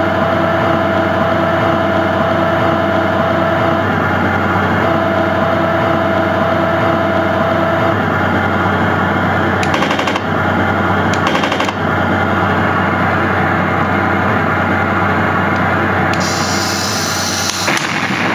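Heng Long TK6.1 RC tank sound board playing its T-90 sound package through a speaker: a steady simulated tank engine rumble. A steady whine sounds over it for about eight seconds, with a short break near four seconds. Two short bursts of gunfire effects come near ten and eleven and a half seconds, and a brief high hiss near the end.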